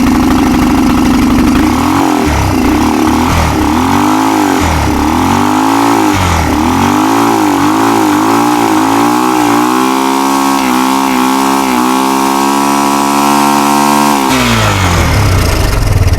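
Kawasaki 300 4x4 ATV's single-cylinder four-stroke engine, running with no air filter, is revved up and down again and again. It is then held at high revs for a few seconds and drops back to idle a couple of seconds before the end. The engine is being run up to clear its carburetor with sprayed-in carburetor cleaner.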